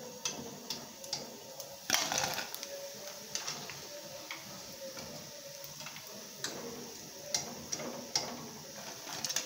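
Deep-fried rice pakoras being scooped out of hot oil with a wire skimmer in an aluminium kadai: scattered clicks and crackles, with a cluster of them about two seconds in.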